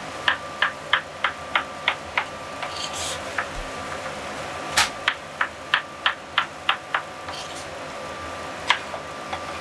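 Chef's knife chopping carrots on a cutting board: a run of even chops about three a second, a pause with a few single cuts, then a second run, and a couple more cuts near the end. A faint steady hum runs underneath.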